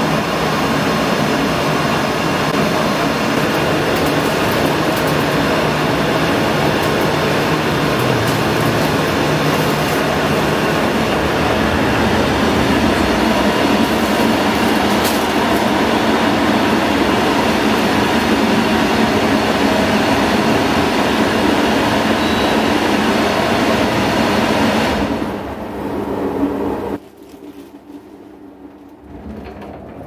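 Zanussi ZPAC9002 portable heat pump air conditioner running loud and steady in heating mode, its fan blowing with no hoses attached. Near the end the sound falls away in two steps as the unit shuts down.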